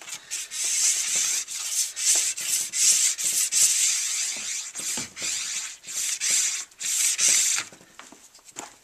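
Plastic wax scraper drawn along the base of a cross-country skate ski in repeated strokes, roughly two a second, scraping off the excess glide wax that was ironed in and left to cool. The scraping stops near the end.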